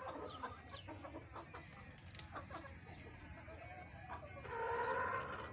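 Chickens clucking, many short calls overlapping, with a louder drawn-out call from one bird near the end.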